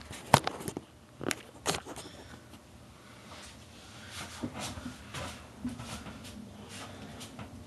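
Handling noise from a camera being set in place: a few sharp knocks and clicks in the first two seconds, the loudest just after the start. After that come soft, scattered sounds of someone moving about.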